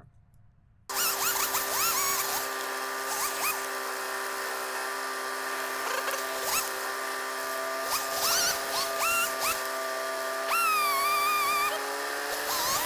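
Background music of steady held tones, with short rising chirps scattered through it. It starts after a brief near-silent gap and the chord shifts near the end.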